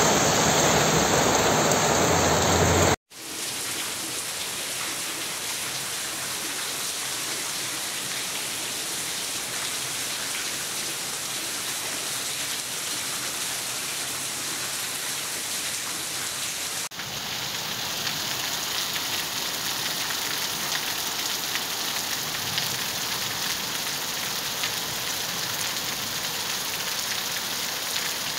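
Heavy rain falling steadily, an even hiss of rain on the ground. For about the first three seconds a louder rush of car tyres on a wet street covers it, then cuts off abruptly. The rain hiss changes abruptly again about seventeen seconds in, between recordings.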